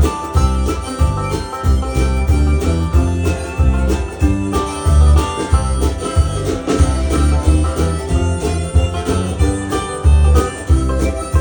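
Instrumental country-bluegrass music with picked banjo and guitar over a steady bass beat.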